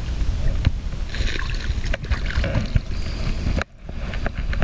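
Rumbling wind noise on the microphone with scattered knocks and clicks of handling in a small fishing boat. The sound cuts out abruptly for a moment near the end, then comes back.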